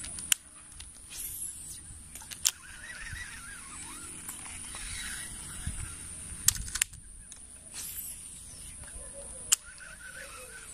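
Rural outdoor ambience: a steady high-pitched insect drone with scattered wavering bird calls. A few sharp clicks stand out, one near the start, a double click about two-thirds through and one near the end.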